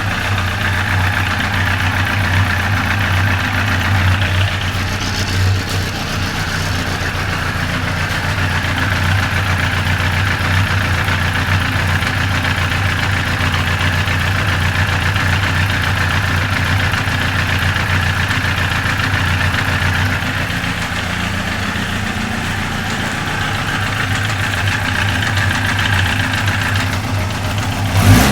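Yamaha FJ1200's air-cooled inline-four engine idling steadily while still cold.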